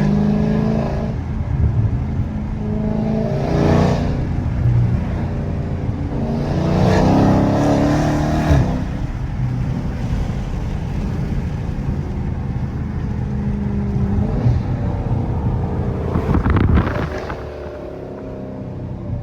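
Dodge Challenger Scat Pack's 392 Hemi V8 with gutted catalytic converters, driving with a steady exhaust drone. It is revved hard in three surges, about 3 seconds in, around 7 to 8 seconds and near 16 to 17 seconds, then eases off.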